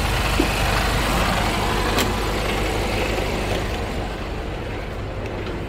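Semi-truck's diesel engine idling steadily, under a hiss that fades away after about four seconds, with a single sharp click about two seconds in.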